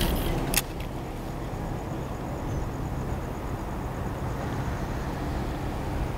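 Steady low rumble of road traffic on the highway bridge overhead, with a single sharp click about half a second in.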